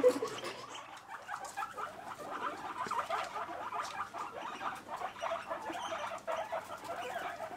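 Guinea pigs vocalising: a steady run of soft, rapid little squeaks and chirrs, starting about a second in.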